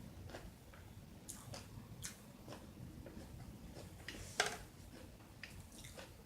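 Faint eating sounds: short wet mouth clicks and chewing at an uneven pace, with one sharper click about four and a half seconds in.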